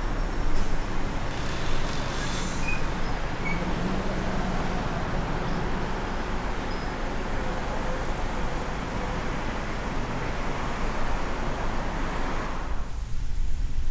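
Road noise from a car driving in city expressway traffic: a steady tyre and engine rumble with passing vehicles. There is a short hiss about two seconds in, and near the end the higher road noise drops away sharply, leaving the low rumble.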